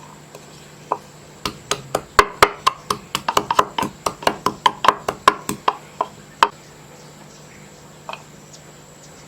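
A quick, irregular run of sharp clicks and taps, about four a second, that stops after a few seconds and is followed by a couple of isolated taps.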